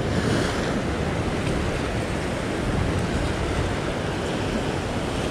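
Sea waves breaking and washing over a rock ledge: a continuous rushing wash of surf, its hiss briefly brighter right at the start.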